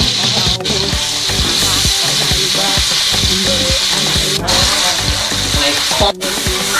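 Food sizzling in a hot pan as it is stirred, with scraping clicks from the stirring.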